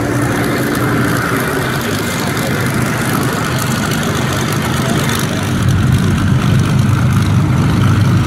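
Piston aero engines of WWII propeller fighters running at low taxi power, a Messerschmitt Bf 109 taxiing closest. A steady, low engine note that grows louder about five and a half seconds in.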